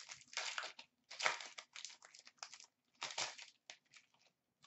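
Silver foil wrapper of a hockey card pack crinkling and tearing as it is peeled open by hand, in a string of short crackly bursts.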